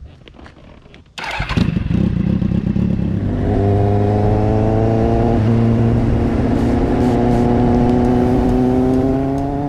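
Kawasaki Z800's inline-four engine pulling away hard about a second in, then running loud and steady with its pitch rising slowly as the motorcycle rides on.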